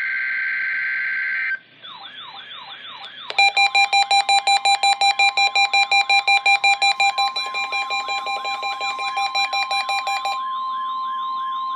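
The tail of an EAS SAME header data burst, a harsh buzzy screech, cuts off about a second and a half in. Weather alert radios then sound their alarms for the NOAA Required Weekly Test: a repeating warbling siren-like tone, joined about three seconds in by rapid electronic beeping over a steady tone. The beeping stops near the end while the warble and the steady tone go on.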